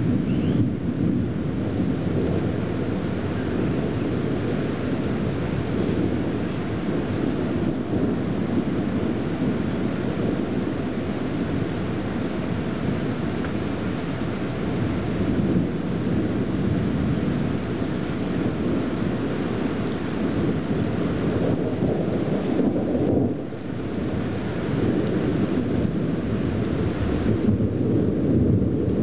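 Rain falling through a long, continuous rumble of thunder that dips briefly about two-thirds of the way through.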